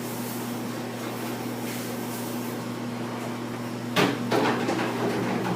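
Steady low electrical hum of kitchen equipment, with a short knock about four seconds in.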